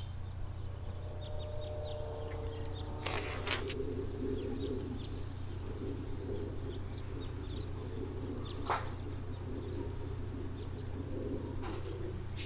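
Faint bird calls over a steady low hum, with a couple of brief knocks.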